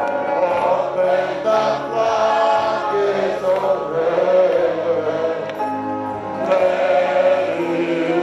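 Gospel worship music with a choir singing sustained notes.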